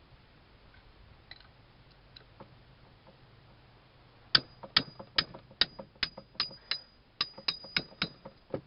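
About a dozen light hammer taps on a steel vise part, starting about four seconds in at two to three taps a second, each with a high metallic ring. The tapping works a stuck part of the Wilton vise loose.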